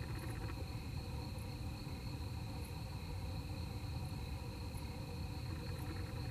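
Crickets chirping steadily in a night-time chorus, with a faster trill that stops about half a second in, over a steady low rumble.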